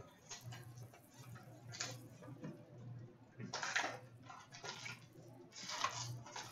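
A cardboard box of trading cards being opened and handled: short bursts of cardboard and plastic rustling and scraping, the loudest about three and a half seconds in, over a faint low steady hum.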